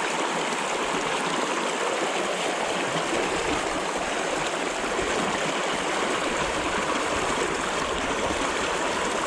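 Fast-flowing river current, a steady rushing wash of water.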